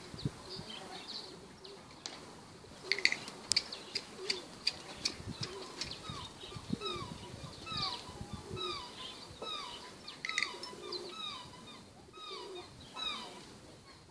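A bird calling over and over, a short hooked note about twice a second, with a few sharp clicks about three to five seconds in.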